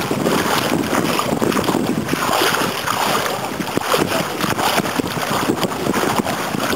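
Wind buffeting a small digital camera's microphone in uneven gusts, over water lapping in the shallows.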